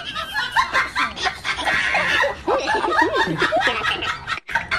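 A person laughing in short chuckles, with scattered light clicks and a brief gap in the sound near the end.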